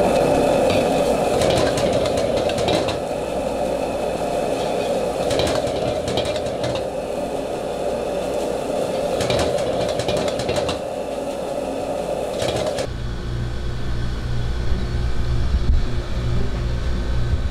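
Wok cooking: the steady roar of a high-output gas wok burner with a metal spatula clanking and scraping against the wok. About 13 seconds in the roar stops suddenly, leaving a low steady hum with a few clicks.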